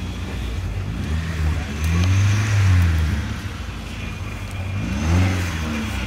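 Off-road Mercedes G-Class 4x4 engine labouring as the truck crawls over a steep dirt bank. The driver revs it up and lets it fall back twice, with the loudest rev a couple of seconds in and another about five seconds in.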